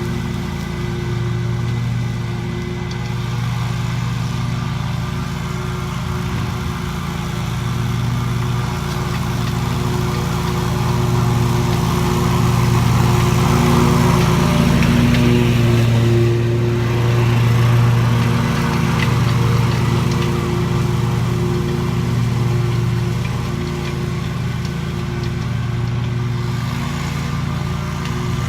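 An engine running steadily with a low drone, a little louder in the middle.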